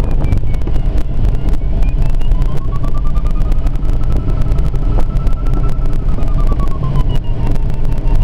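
Loud, steady rumble of wind and airflow in a glider cockpit in flight. A thin tone runs through it, rising slightly in pitch about two seconds in, holding, and falling back again toward the end.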